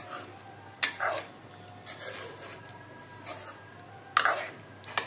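A metal ladle stirring thick curry in a cooking pot, knocking and scraping against the pot a few times, loudest about a second in and again near the end, over a faint low hum.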